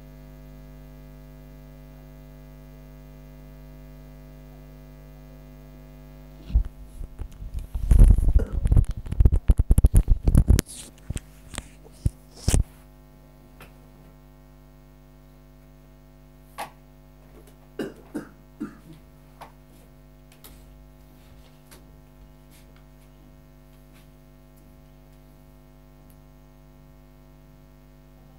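Steady electrical hum. A quick flurry of loud clicks and knocks comes about six seconds in and lasts roughly six seconds, and a few fainter clicks follow a few seconds later.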